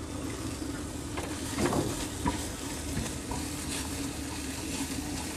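Shredded boiled chicken sizzling as it hits hot oil and spices in a non-stick frying pan, stirred with a silicone spatula, with a few light scrapes.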